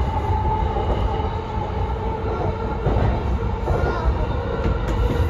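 Yamanote Line electric commuter train running at speed, heard from the driver's cab: a steady low rumble of wheels on rail with a steady hum over it.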